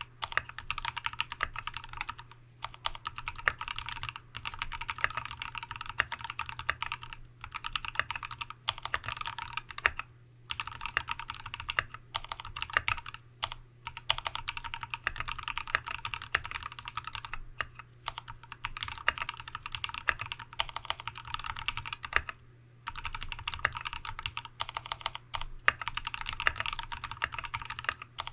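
Continuous fast typing on a TX75v2 custom mechanical keyboard with a brass plate, fully lubed Tealios V2 linear switches fitted with Cherry top housings, and MT3-profile Dev/tty keycaps. The key strokes come in dense runs broken by a few short pauses.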